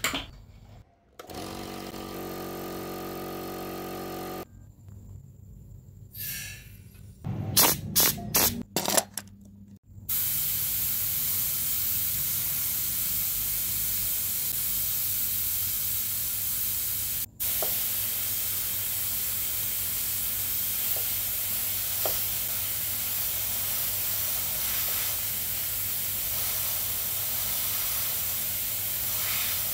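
A small piston air compressor running with a steady hum for a few seconds, then some short loud bursts. After that, a sandblasting gun's ceramic nozzle sprays abrasive onto a model car body: a loud, steady hiss of air and grit, broken once for a moment.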